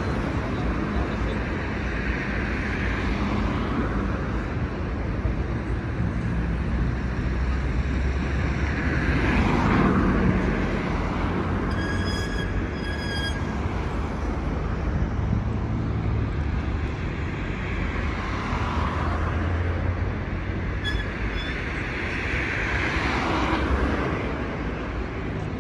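City street traffic: a steady hum of motor vehicles, with two louder swells as vehicles pass close by. A short high-pitched tone sounds about halfway through.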